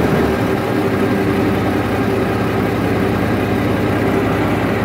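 Single-cylinder diesel engine of a popopo riverboat running steadily with the boat under way, a continuous loud hum.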